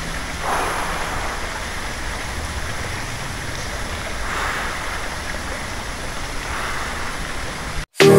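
Steady rush of flowing water at a hot spring pool, swelling slightly a couple of times, then cutting off abruptly near the end.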